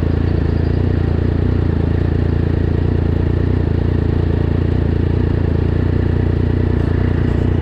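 Triumph Daytona 675R's inline three-cylinder engine idling steadily through a Yoshimura Alpha full exhaust.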